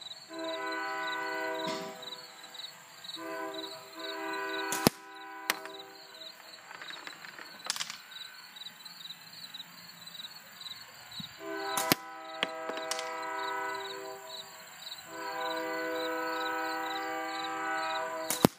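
Several long blasts of a distant train horn, steady chords of two or three seconds each. Between them come a few sharp snaps of slingshot shots striking the target, the loudest about five seconds in and right at the end.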